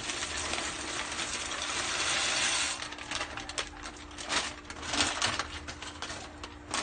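Dry spiral pasta pouring from a plastic bag into a pot of boiling water: a steady rattling rush for about three seconds, then scattered clicks as the last pieces drop.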